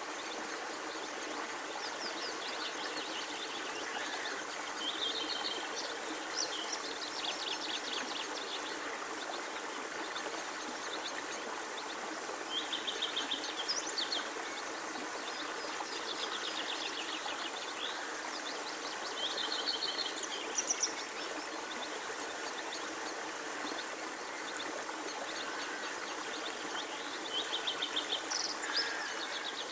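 Birds giving several short rapid trills, each about a second long and a few seconds apart, over a steady hiss of outdoor background noise.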